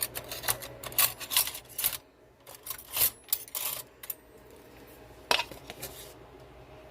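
Light clinks, taps and scrapes of a spoon against a container while baking powder is measured out, with one sharper click about five seconds in.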